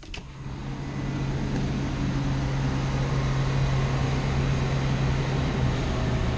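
Balcony door sliding open with a click, letting in a steady outdoor rush of noise with a low, even hum underneath, the ambience of a cruise ship's balcony in port.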